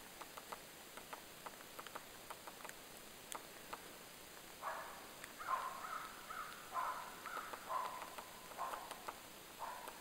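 Woodpecker tapping at tree bark in light, irregular taps. From about halfway, a run of about eight short, harsh bird calls, roughly one a second, is louder than the tapping.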